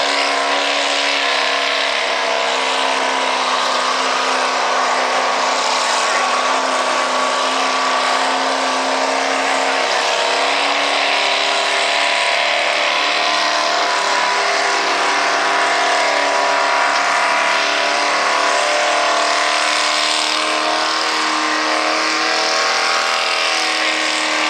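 Open-rail mini rod pulling tractor's supercharged engine running hard under load as it drags the weight-transfer sled, a loud, steady blare that holds its pitch with small dips.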